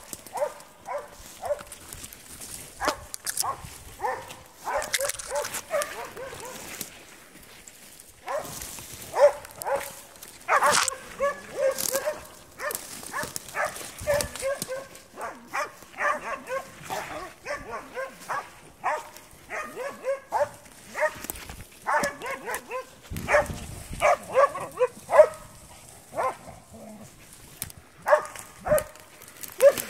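Spitz hunting dogs barking at a badger in quick runs of sharp barks, several a second, with short pauses between runs.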